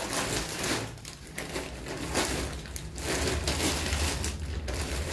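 Plastic packaging crinkling and rustling as it is handled, with scattered sharp crackles.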